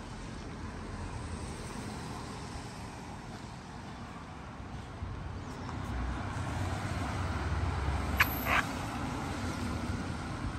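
Steady hiss of a rainy town with traffic on wet roads. A vehicle's low rumble swells about halfway through, and two short sharp clicks come a couple of seconds before the end.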